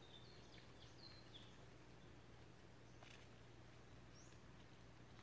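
Near silence, with a few faint, high bird chirps in the first second and a half over a faint steady low hum.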